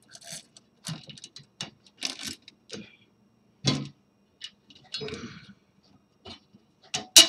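Small metal hardware clicking, tapping and scraping irregularly as a bolt, spring and hand nut are fitted to a corner of a 3D printer's heat bed, with a sharper click near the end.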